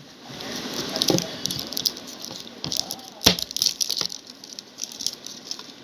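Cream jar being opened by hand: the foil inner seal crinkles and crackles as it is peeled, with a sharp click of plastic about three seconds in.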